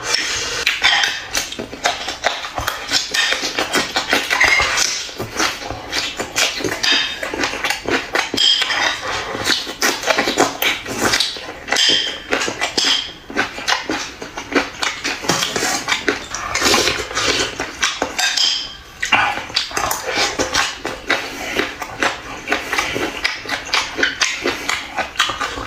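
Chewing and crunching through raw xiaomi la chili peppers: a dense, continuous run of short crunchy clicks, with occasional clinks of dishes.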